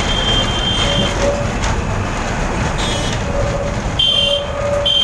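Kolkata tram running on its rails, heard from inside the car: a steady low rumble of the wheels, with high-pitched wheel squeal in short spells during the first second and again from about four seconds in.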